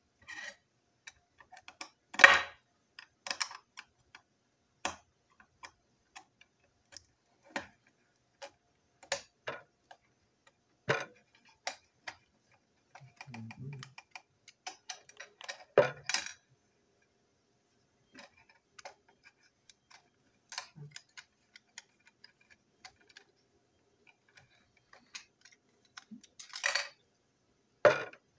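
Irregular clicks and taps of a plastic model train truck being taken apart by hand with a small screwdriver, its small parts and screws knocking on a hard desktop. The loudest knocks come about two seconds in, around the middle and near the end.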